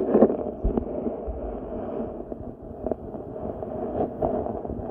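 Underwater sound picked up by a submerged camera: a steady, muffled rumble of moving water with a few scattered clicks and knocks from a Simplex Plus metal detector's search coil sweeping over the sandy bottom close by.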